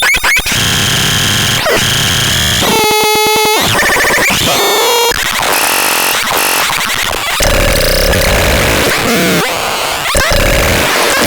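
Harsh electronic noise and synthesized sound effects: hissy noise, sweeping and chirping tones, and a short rapid buzzing pulse about three seconds in.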